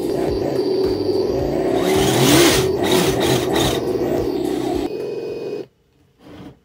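An inexpensive RC engine sound simulator kit plays a synthetic engine sound through its speaker, with a brief rev a little over two seconds in. The sound cuts off suddenly near the end.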